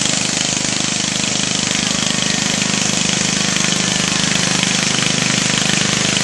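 Riding lawn mower's small engine running steadily while it tows a cart, with a fast, even beat.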